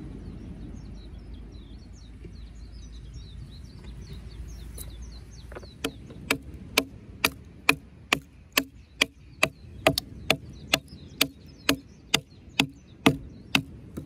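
A wooden baton striking the spine of a Real Steel fixed-blade knife, driving the blade down through a short piece of wood to split it (batoning). Starting about six seconds in, there are around eighteen sharp knocks at a steady two a second. Before the strikes, small birds chirp over a low rumble of wind.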